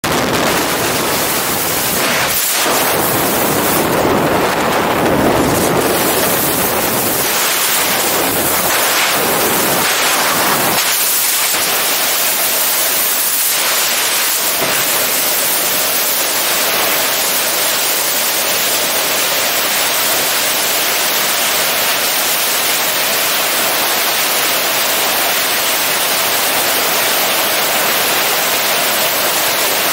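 Loud rushing wind and rotor downwash over the microphone of a camera mounted outside a Robinson R44 helicopter in flight, uneven for the first ten seconds or so, then a steady rush.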